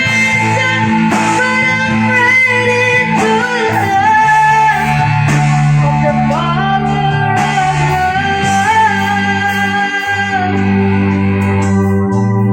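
Live band playing a slow ballad: a sung melody over electric guitar, sustained bass and drums. The cymbals drop out near the end.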